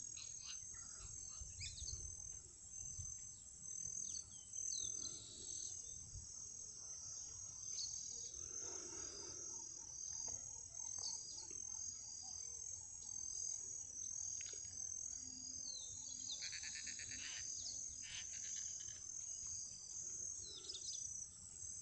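Insects trilling steadily at a high pitch, with a few short chirps here and there and a low rumble underneath.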